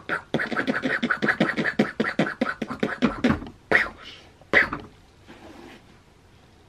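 Yamaha 88-key weighted digital keyboard played in a quick run of rapid notes, then a few separate notes that die away about five seconds in.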